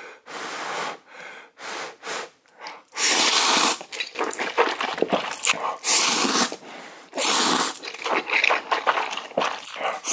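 A person slurping instant noodles out of spicy soup: a string of loud slurps with chewing between.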